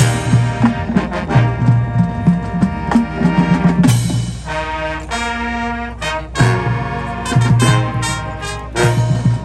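High school marching band playing its competition show: loud brass chords with punchy low accents and drums. About four and a half seconds in, it drops to a softer held chord, and the full band comes back in about a second and a half later.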